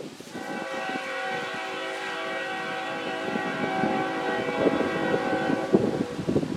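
Train horn sounding one long blast of about five and a half seconds: a steady chord of several tones that starts and stops suddenly at a fixed pitch, heard far off over wind on the microphone.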